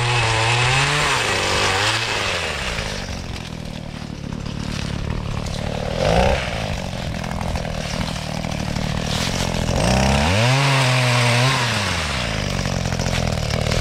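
Gas pole saw's small two-stroke engine revved up to full speed twice, near the start and about ten seconds in, each time holding high and then dropping back to idle, with a short blip of throttle about six seconds in. The revs are the saw being run up to cut branches while pruning fruit trees.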